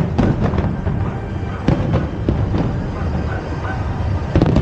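Fireworks shells bursting in sharp bangs, several over a few seconds with the loudest near the end, over a constant low rumble and the display's accompanying music.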